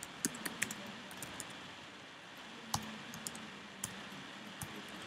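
Typing on a computer keyboard: irregular, scattered key clicks, a few sharper than the rest.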